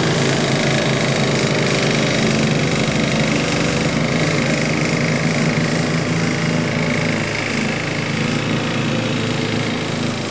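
Riding lawnmower's small engine running steadily, with an even, unbroken drone that eases slightly in loudness in the second half.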